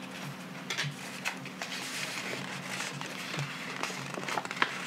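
A large paper poster rustling and crinkling as it is held up and moved by hand: a scatter of irregular soft crackles that grow denser near the end, over a faint steady low hum.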